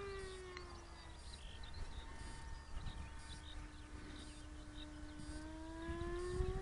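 Electric motor and propeller of a Ranger EX model plane, heard far off as a steady hum that drops in pitch about a second in and climbs again near the end as the autopilot changes throttle during return-to-home. Wind rumbles on the microphone, with small bird or insect chirps.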